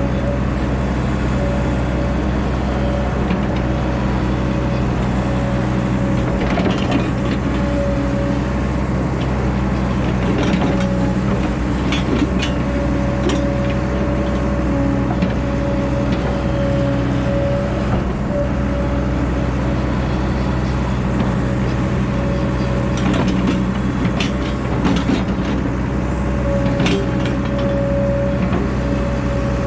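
Diesel engine of earthmoving machinery running steadily at a constant speed, with scattered short metallic clanks and knocks.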